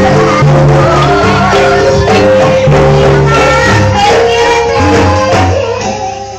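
Traditional Banyumas music accompanying ebeg and lengger dance: pitched instruments play stepped melodic lines over a pulsing bass, with regular percussion strikes. The music thins and drops in level near the end.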